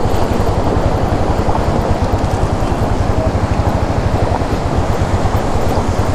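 Royal Enfield Meteor 350's single-cylinder engine running at low revs with an even, fast thump, under a steady rushing noise as the motorcycle rolls slowly over a rocky track.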